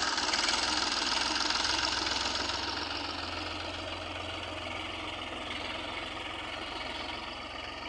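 Massey Ferguson 245 DI tractor's three-cylinder diesel engine running steadily under load as it pulls a tiller and a wooden levelling plank through soft soil. It grows gradually fainter as the tractor moves away.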